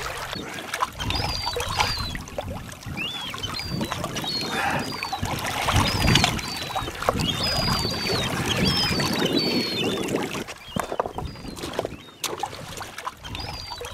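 Small waves lapping and splashing on a rocky lakeshore as a gutted lake trout is rinsed in the water, with repeated short, high gull cries over it. A few sharp clicks near the end.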